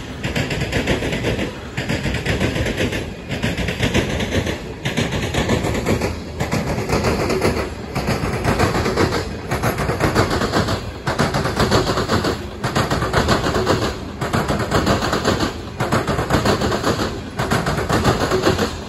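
Freight train of covered hopper cars rolling past close by: a loud, dense rattling clatter of steel wheels on rail, dipping briefly about every second and a half.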